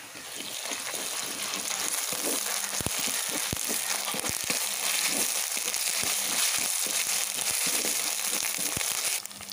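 Ginger-garlic paste and chopped onions sizzling in hot oil in a clay pot while a wooden spatula stirs them, with scattered knocks and scrapes of the spatula against the pot. The sizzle builds over the first second or so and drops off sharply near the end.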